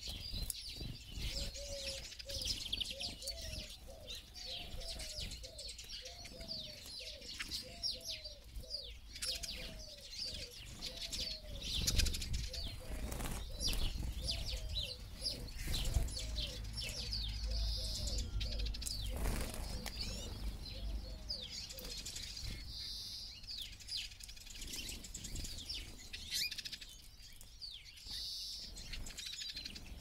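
Flock of Eurasian siskins twittering and chirping at seed feeders, with wings fluttering as birds land and take off. A lower-pitched call repeats about twice a second in the background through roughly the first third.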